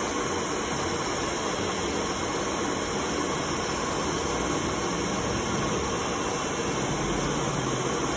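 Steady machinery noise, an even hiss with a low hum, unchanging throughout.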